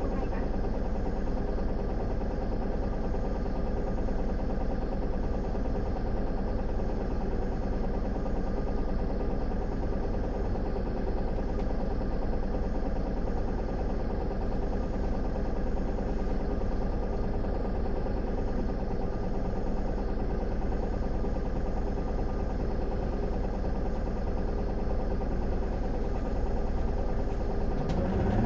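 Isuzu Erga city bus's four-cylinder turbo-diesel idling steadily, heard from inside the passenger cabin.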